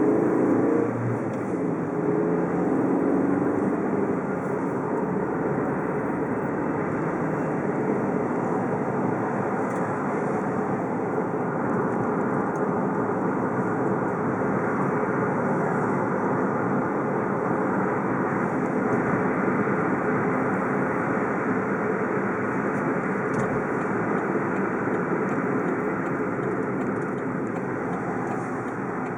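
Car being driven, with steady engine and road noise throughout.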